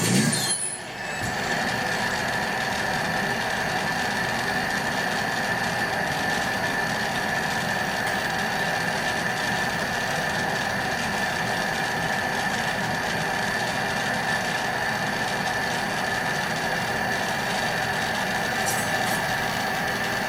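Glassworking torch running with a steady roaring hiss and a faint high steady tone.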